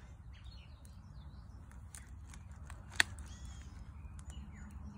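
Faint crackling and rustling of hands crumbling oyster-mushroom sawdust spawn onto the top of a log, with scattered small ticks and one sharp click about three seconds in. Faint bird chirps sound in the background.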